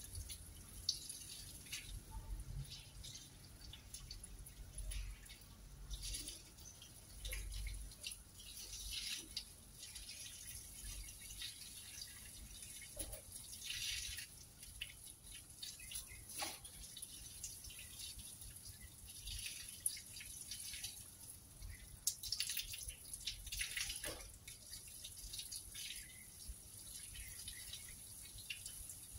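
Water from a garden hose splashing and dripping onto wet rags, coming and going in irregular bursts as they are rinsed.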